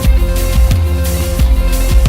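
Instrumental jazz-rock trio music: electric guitar, electric bass and drum kit playing together, the drums striking about twice a second over held bass notes.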